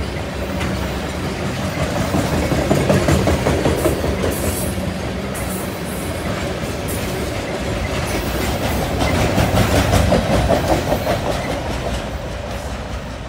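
Freight train tank cars rolling past on straight track: steel wheels rumbling and clattering, with clicks from the wheels on the rails. The sound swells twice and fades near the end as the last car goes by.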